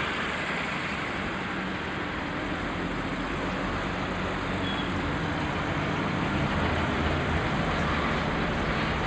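Steady road traffic noise, with a motor vehicle's engine running close by.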